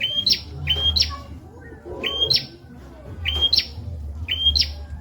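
Prenjak (prinia) song: short two-part notes, each a brief steady whistle followed by a quick sharp upward flick, repeated about once a second, over a faint low hum.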